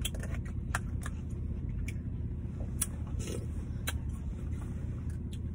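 Steady low rumble inside a car, with about five faint, short clicks of a fork against a plastic container while eating.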